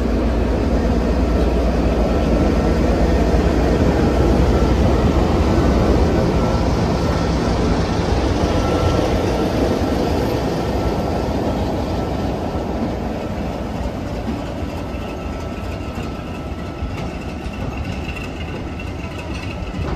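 BR Class 33 diesel-electric locomotive's Sulzer eight-cylinder engine running under power as it hauls a train of coaches away. The engine is heaviest in the first few seconds and gradually eases off. Later the coaches roll past on the rails.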